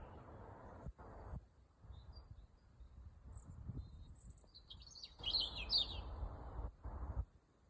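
Small birds chirping in short high calls, busiest and loudest from about four to six seconds in, over a low rushing noise that comes and goes in patches.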